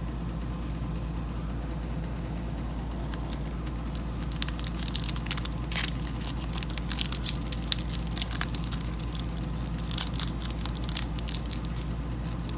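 Baseball cards and their crinkly pack wrapper being handled. Irregular sharp crackling and crinkling starts about three to four seconds in, over a steady low hum.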